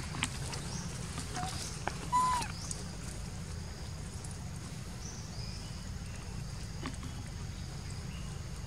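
A young macaque gives one short squeaky call about two seconds in, with a softer squeak just before it. Under it runs a steady low outdoor rumble, with a few faint clicks.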